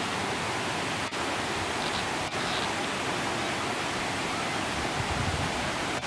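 Steady rushing hiss of the waterfall, water spilling over limestone ledges. The sound briefly drops out twice.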